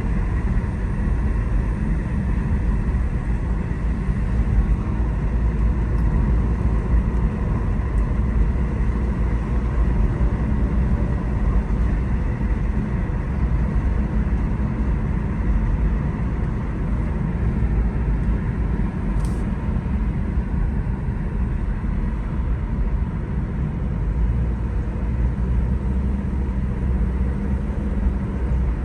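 Chevrolet Cruze 1.8 driving on the road, a steady low engine and road rumble throughout, on a test drive after a repair to its whining transmission.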